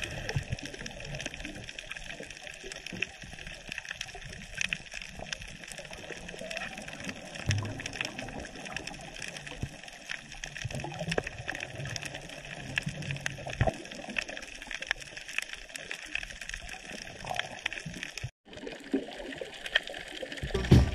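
Underwater reef sound heard through a dive camera's housing: a dense, steady crackle of short clicks, typical of snapping shrimp on coral, with uneven gurgling from a diver's exhaled bubbles. The sound drops out for a moment near the end.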